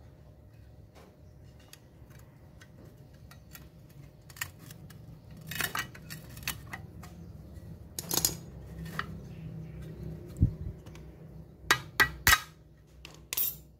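Metal clicks and clinks of circlip pliers fitting a snap ring onto the metal blade-guard assembly of a handheld circular saw. The clicks are scattered and irregular, sparse and faint at first, then sharper in the second half with a quick cluster near the end.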